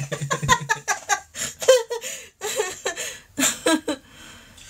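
People laughing in quick repeated bursts, a lower-pitched laugh at first and a higher-pitched one around two seconds in, trailing off into quiet near the end.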